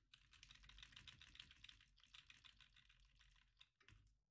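Faint, rapid typing on a computer keyboard: a quick run of key clicks that stops shortly before the end, with a single knock near the end.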